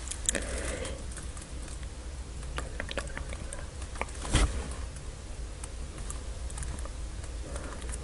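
Small scattered clicks and taps of fingers handling a gummy eyeball jelly close to the microphone, with one louder knock about four and a half seconds in, over a steady low rumble.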